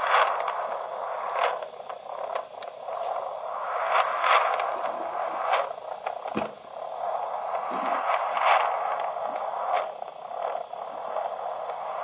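Steady static-like hiss held in a narrow middle band, like sound heard through a small radio. It swells and fades irregularly every second or so, with a few faint clicks.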